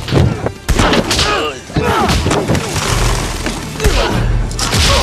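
Men grunting and crying out as they struggle, with several heavy thuds of blows landing.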